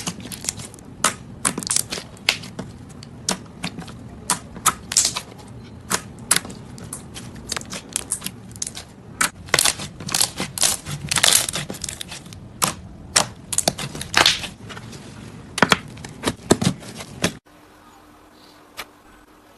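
Slime being squished and poked by hand, with rapid, irregular sharp clicks and pops of trapped air. About 17 seconds in it cuts off suddenly to a much quieter stretch with only a few faint clicks.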